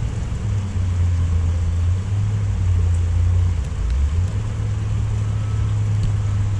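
Steady low mechanical drone, like an engine or motor running, that dips briefly about four seconds in.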